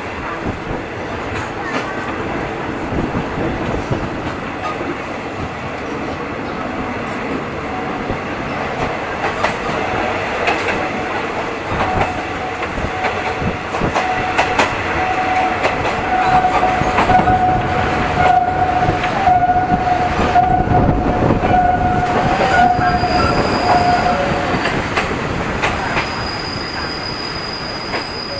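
Passenger train running, heard from inside the carriage at an open window: a steady rumble with wheels clicking over the rail joints. A long steady squeal rides over it from about a third of the way in until near the end.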